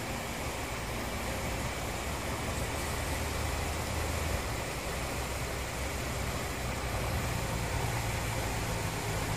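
Steady ambient noise: a low rumble under an even hiss, with no distinct events.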